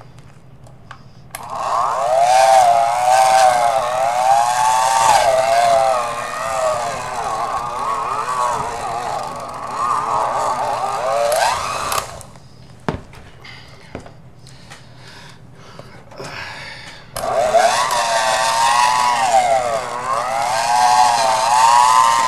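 Electric hand mixer running, its motor whine rising and falling in pitch as the beaters churn a thick mix of whipped topping and crunchy peanut butter. It stops about 12 seconds in, with a single click during the pause, and starts again about five seconds later.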